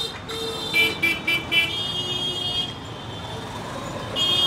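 Vehicle horns honking in street traffic: a long high-pitched horn, a run of four quick short toots about a second in, another long horn, and a louder long blast near the end.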